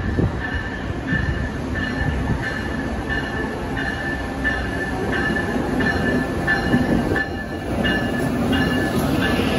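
Siemens ACS-64 electric locomotive and its passenger train pulling into a station platform, with a steady rumble of wheels on the rails and some wheel squeal. A bell-like high tone pulses about twice a second throughout.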